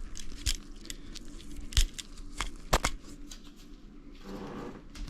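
Hands handling electrical wiring at a switch box: scattered light clicks and rustling, with a few sharper clicks.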